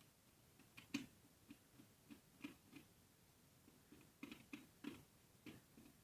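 Faint, irregular small clicks and ticks of a screwdriver and wire being worked at a screw terminal strip as a wire is fastened in.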